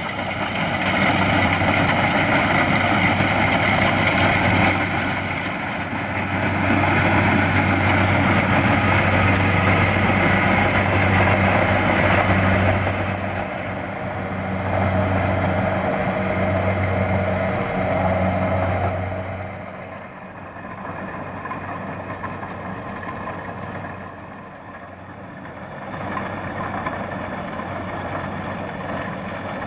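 Kubota DC-70 Plus combine harvester running steadily as it harvests rice in a flooded field: a constant diesel engine hum over the noise of its working machinery. It drops noticeably in loudness about two-thirds of the way through.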